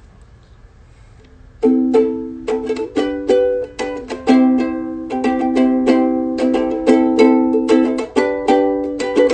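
Ukulele strummed in chords, several strokes a second, starting after a short pause about one and a half seconds in.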